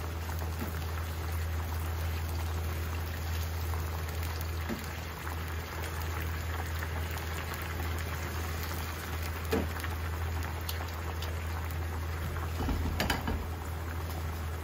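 Pasta water at a rolling boil in a large pot, bubbling steadily. A couple of sharp clicks of a utensil against the frying pan come about ten and thirteen seconds in.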